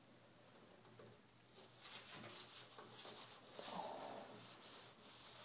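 Faint, irregular scraping and rubbing on car bodywork, starting about two seconds in, over a faint steady hum.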